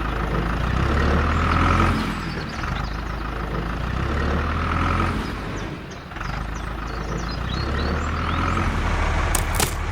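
Heavy vehicle engine running with a deep rumble, swelling louder three times as if revved or under load, with a few sharp clicks near the end.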